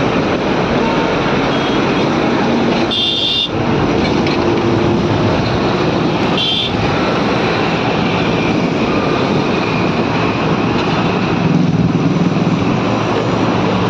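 Steady rush of wind on the microphone with the drone of the moving two-wheeler and surrounding road traffic, broken by two brief high tones at about three and six and a half seconds.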